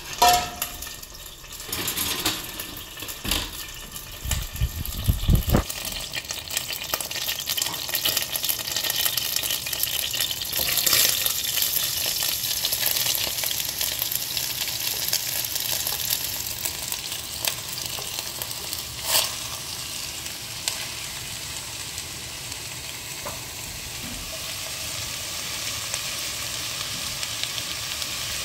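Food sizzling and frying in a hot sauté pan, with a few clanks and knocks of cookware and utensils in the first six seconds. The sizzle swells about ten seconds in and then runs on steadily.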